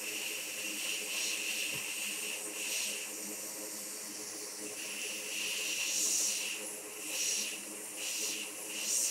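A steady hiss, with a few soft noisy swells in the second half.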